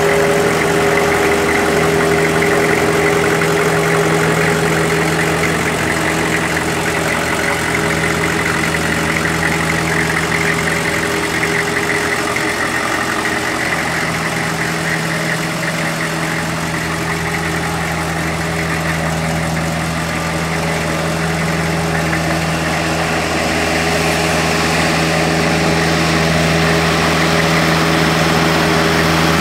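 1999 Chevrolet 2500 utility truck's 6.5-litre turbo-diesel V8 idling steadily.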